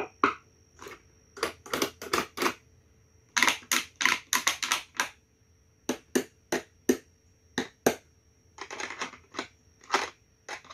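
A wooden stick striker tapping the metal jar lids and caps of a homemade found-object sound board, in irregular single taps and quick flurries of strikes.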